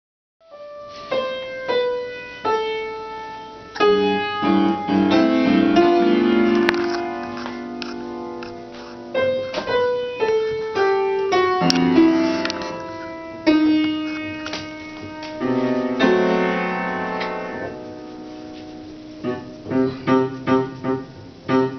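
Upright piano played from sheet music: single notes and chords struck and left to ring out, with a quick string of short notes near the end.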